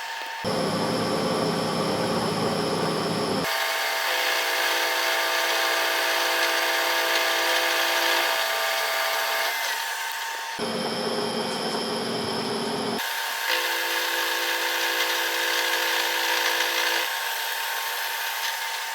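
Lathe machining a stainless steel round bar: a steady machine whir and cutting hiss with several held tones. The sound switches abruptly between two kinds of running noise a few times, one heavier and lower, the other higher with ringing tones.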